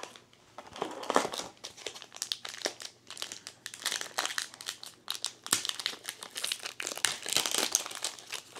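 Foil trading-card booster pack crinkling and crackling as it is twisted and torn open by hand.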